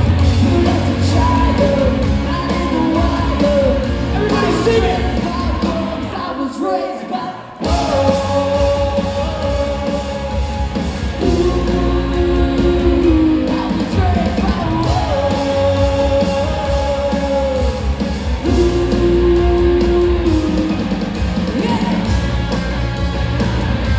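Live ska-punk band recorded from the crowd in a large hall: a woman singing lead over electric guitar, bass, drums and keyboard. The band briefly drops out about six seconds in and crashes back in at full volume about a second and a half later.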